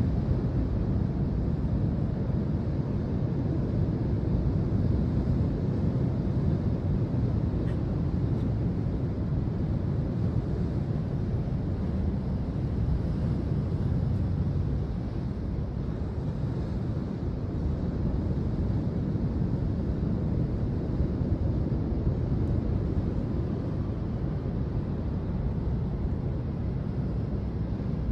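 Steady low rumble of breaking ocean surf mixed with wind buffeting the microphone, swelling and easing slowly.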